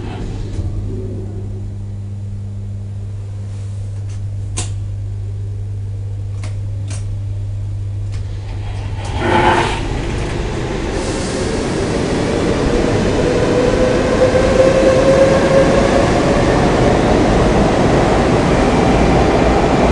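Steady low hum with a few sharp clicks, then about nine and a half seconds in a sudden rush of noise and a growing rumble as a metro train gets under way, its motors whining up in pitch as it accelerates.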